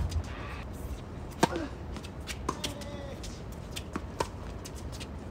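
Tennis rally on a hard court: a string of sharp pops from racquets striking the ball and the ball bouncing, about five in all, the loudest about a second and a half in.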